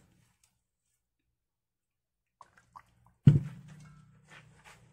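A stainless steel bowl of raw chicken wings in soy-sauce and honey marinade handled by hand: a couple of faint ticks, then one sharp knock against the bowl a little past three seconds in, followed by soft wet sounds of the wings and marinade shifting.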